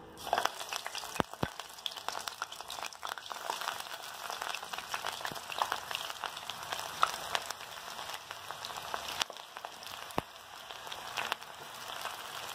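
Keerai pakoda batter of wheat flour, chopped greens and onion deep-frying in hot oil in a kadai, a steady sizzle and crackle of bubbling oil with a few sharper pops.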